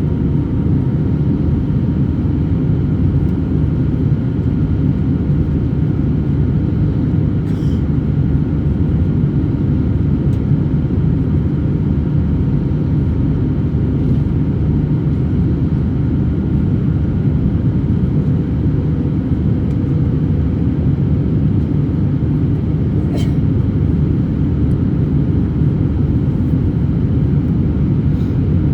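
Steady cabin noise inside an Airbus A321-200 in flight: the constant low roar of the jet engines and airflow, with a faint steady whine and a couple of small clicks.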